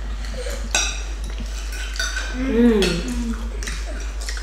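Forks and spoons clinking and scraping on dinner plates as people eat, in scattered sharp clicks. A brief voice sound about two and a half seconds in.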